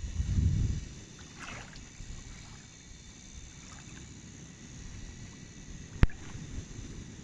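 Low rumble of outdoor wind buffeting the microphone, gusting in the first second, with a single sharp click about six seconds in.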